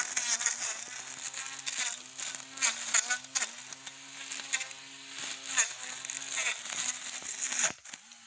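Battery-powered 88-volt brush cutter running with a steady electric motor hum, its pitch sagging briefly as it bites into grass, with irregular slashing strikes as the cutting head hits the vegetation. The sound cuts off shortly before the end.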